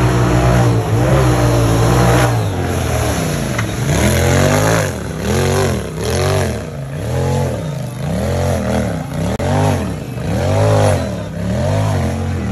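Turbocharged Polaris RZR side-by-side engine running at high revs for about two seconds. It then revs up and down in repeated pulses about once a second as the machine churns through deep mud.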